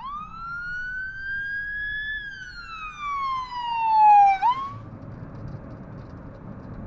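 Electronic siren wail: one smooth sweep that climbs for about two seconds, falls for a little over two more, hooks sharply upward and cuts off suddenly. A steady low rumbling noise follows.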